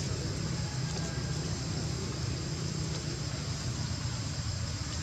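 Steady outdoor background noise: a low rumble under a constant high hiss, with no distinct event.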